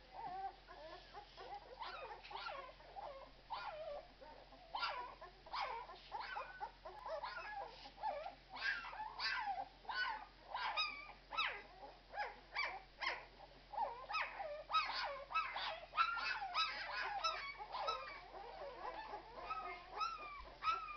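A litter of 12-day-old Irish Red and White Setter puppies squeaking, with many short rising-and-falling calls that overlap almost without pause. The calls grow busier and louder about halfway through.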